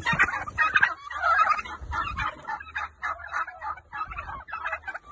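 Domestic turkeys gobbling: a dense run of short, quick calls repeated throughout.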